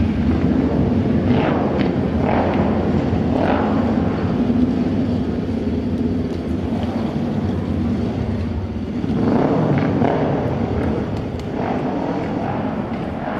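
Auto race motorcycles running round the oval, their engines sweeping past one after another over a steady engine noise: three passes about a second apart, then another bunch about nine seconds in.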